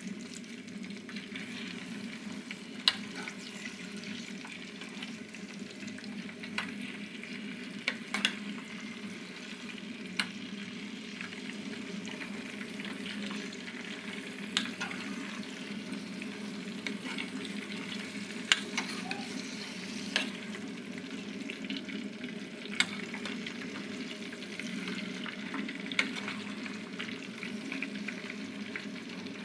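Hand-cut potato chips frying in a metal pot, a steady sizzle, while a metal spoon stirs them and clinks sharply against the pot every few seconds.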